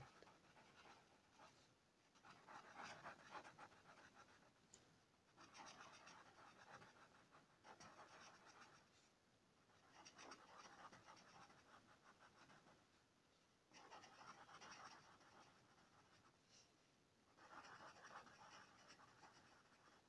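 Coloured pencil shading on the paper of a colouring book: faint, scratchy back-and-forth strokes. They come in about five spells of two to three seconds each, with short pauses between.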